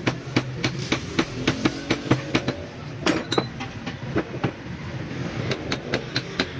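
Sharp, irregular knocks and taps, a few a second, over a steady low hum, like metal being struck during repair work.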